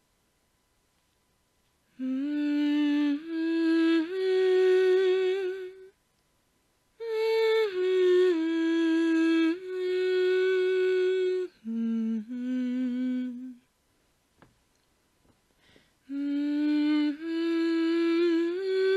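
A voice humming a slow melody in long held notes, with short pauses between phrases.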